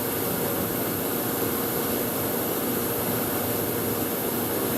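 Steady factory machinery noise: an even roar with a faint held hum that does not change.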